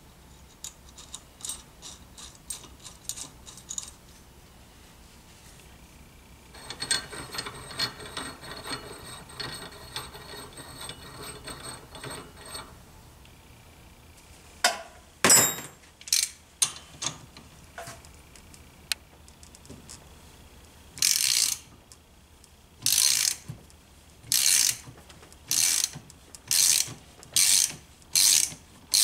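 Socket ratchet clicking in short strokes as it turns the forcing screw of a bearing puller, drawing a main bearing off a Motobecane AV7 moped crankshaft. The strokes come faster toward the end, about one and a half a second. Before that there are scattered metallic clicks, a rattling stretch and one sharp loud click.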